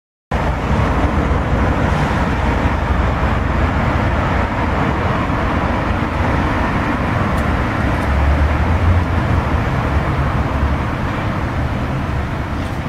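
Neoplan coach's diesel engine idling as a steady low rumble, mixed with street noise. It starts abruptly a moment in.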